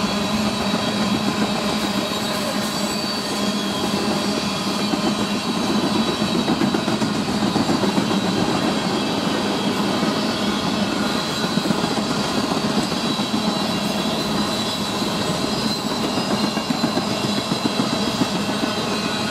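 A freight train of tank cars rolling past, with the steady clatter of steel wheels on the rails. A steady low hum runs under it.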